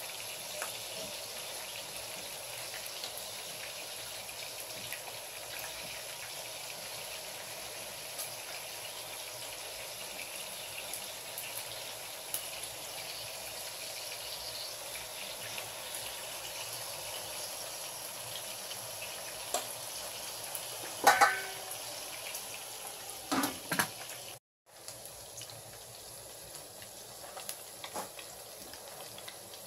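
Shrimp sizzling as they sauté in oil in a wok, with a metal spatula scraping and tapping against the pan. A louder ringing metal clank comes about 21 seconds in, and two more knocks a couple of seconds later.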